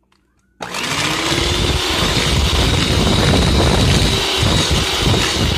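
Electric hand mixer switched on about half a second in and running steadily at speed, its motor tone rising briefly as it spins up, with a steady high whine. Its beaters are beating an egg into creamed butter and sugar.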